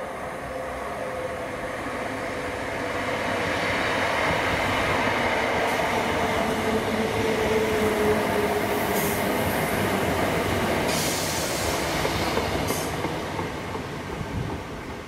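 A train passing, growing louder over the first few seconds, loudest around the middle, then fading. A steady whine runs through it and drops slightly in pitch as the train goes by, with brief bursts of high hiss in the second half.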